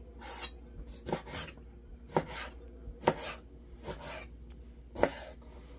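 Kitchen knife cutting raw largemouth bass into pieces along the rib bones: short rasping strokes and sharp knocks, about one a second.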